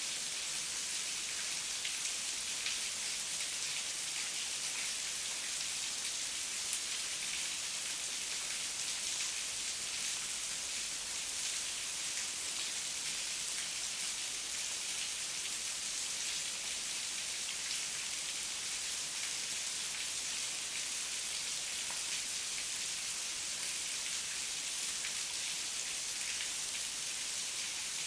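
Heavy rain falling steadily, a dense even hiss of drops with faint individual patters.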